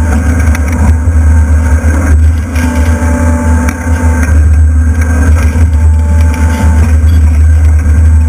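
Demolition excavator's diesel engine running steadily under load, with a whine that comes in twice for about a second each as the machine works.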